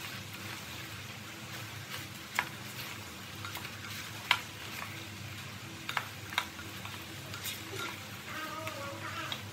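Chunks of breadfruit sizzling in sugar syrup in a pot while a wooden spatula stirs them. The spatula knocks sharply against the pot about four times, loudest about four seconds in.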